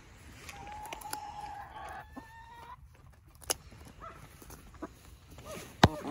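Buff hen protesting at being held down, giving a long drawn-out call and then a few short clucks. A single sharp tap near the end.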